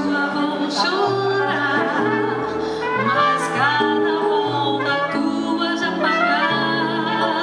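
A woman singing with vibrato into a microphone, accompanied by a Roland Fantom-G7 keyboard playing held chords and low bass notes that change about every second.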